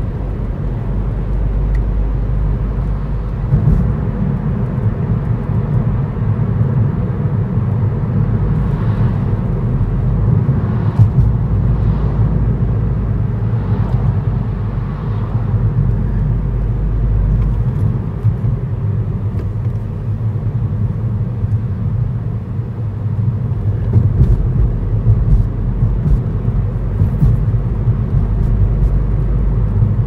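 A car driving: a steady low rumble of engine and road noise.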